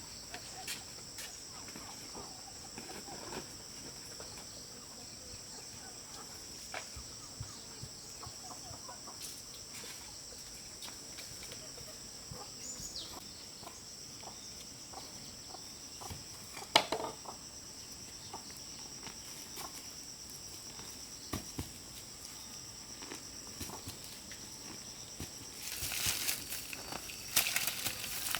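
Steady high-pitched drone of insects, with chickens clucking now and then and scattered light clicks; one sharp knock about halfway through, and rustling and crackling near the end.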